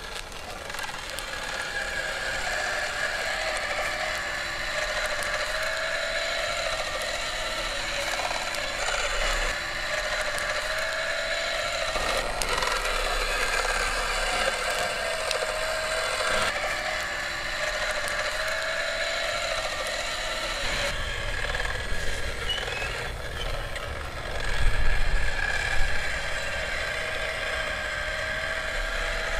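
Spit-roast rotisserie mechanism turning a whole lamb: a steady mechanical whirring with a wavering whine and light ratchet-like ticking. There is a louder knock or rustle about 25 seconds in.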